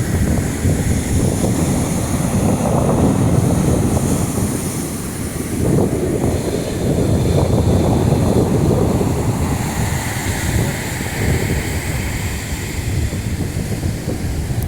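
Wind buffeting the microphone in loud, uneven gusts over the wash of sea surf on the shore.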